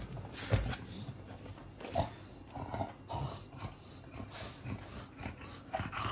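American Bully dogs moving about on a bed, one climbing over the other, with a few short dog noises and a thump about half a second in.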